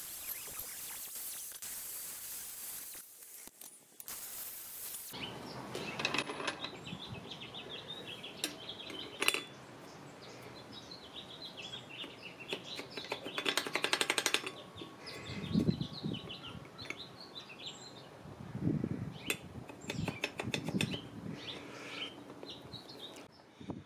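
Light metallic clicks and clinks as a thin diamond grinding disc is handled on a threaded shaft, with a quick rattle of ticks around the middle and a few dull knocks, while birds chirp in the background. It opens with a few seconds of steady hiss that cuts off abruptly.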